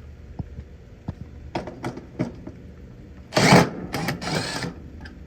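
Clicks and knocks of hand tools and metal parts as the failed 40/5 µF dual run capacitor is taken out of the air conditioner, with a louder rough handling noise in two parts about three and a half seconds in.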